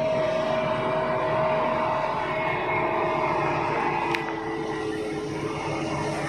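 Heavy diesel machinery running steadily: the engine of a working excavator, with a steady whine that dips slightly in pitch about three seconds in. A sharp click about four seconds in.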